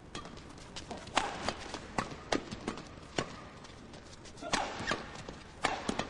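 Badminton rackets striking the shuttlecock back and forth in a fast doubles rally. The loudest sharp cracks come roughly once a second, with fainter taps from players' feet on the court between them.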